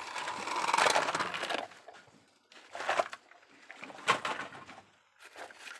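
Plastic toy vehicles being handled in wet sand: a scraping, crunching sound for about the first second and a half, then two sharp knocks of plastic a second apart.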